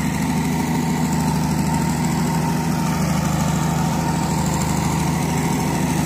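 Engine-driven generator running steadily: a constant, loud engine drone with a low hum that does not change.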